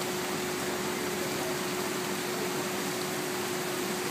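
Steady mechanical hum and hiss, with one constant mid-low tone running through it.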